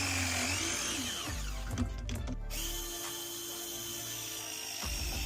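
Battery-powered pipe press tool's motor whining, its pitch sagging and rising under load. It breaks off with a sharp click about two seconds in, then runs steadily again, with another click near the end.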